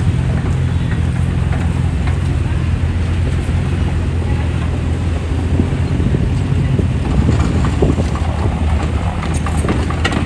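Komatsu D20P bulldozer's diesel engine running steadily under load while pushing earth, with a few sharp knocks near the end.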